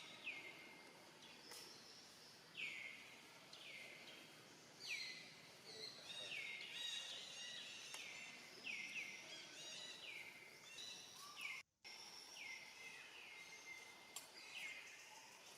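Outdoor birdsong: a bird repeats a short, downward-sliding call about once a second, with fainter, higher chirps from other birds over quiet background noise. The sound cuts out briefly about twelve seconds in.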